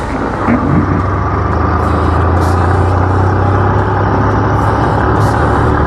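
Motorcycle engine running steadily as the bike rides along, with wind and road noise.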